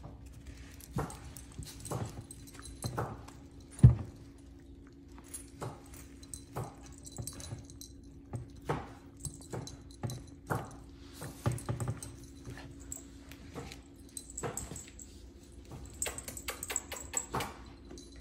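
Dogs and puppies moving about on a tile floor: scattered light clicks and scuffles with occasional soft whimpering, and one sharp knock about four seconds in.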